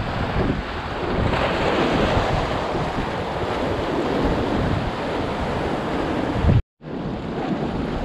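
Rough surf surging and breaking against concrete tetrapods and rocks, a steady rushing wash, with wind buffeting the microphone. The sound cuts out for a moment about three-quarters of the way through.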